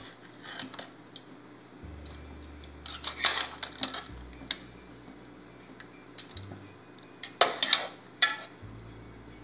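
A skimmer clinking and scraping against a metal pressure-cooker pot and a steel bowl as boiled pumpkin chunks are lifted out of the water, in short clusters of clatter a second or two apart.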